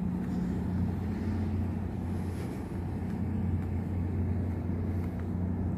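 Vehicle engine running steadily while moving slowly, a constant low hum with an even note that does not change.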